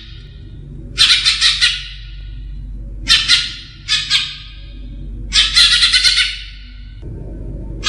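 Greater green leafbird (cucak ijo) singing: four loud bursts of rapid, chattering trilled phrases a second or so apart, over a steady low hum.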